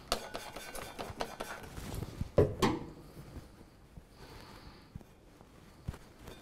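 A cloth rag rubbing over a metal putty knife blade as it is wiped clean, with small clicks and handling knocks, busiest in the first few seconds and quieter after.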